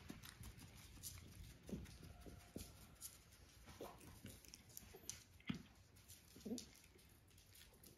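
Faint close-up licking and mouthing as a cat grooms a small dog's face, with scattered soft clicks and a few short mouth sounds, the clearest about five and a half and six and a half seconds in.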